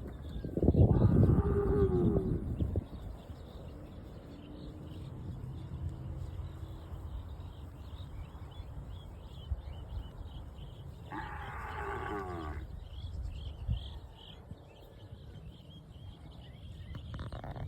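Cows mooing: one long moo about a second in and a second about eleven seconds in, over a steady low rumble.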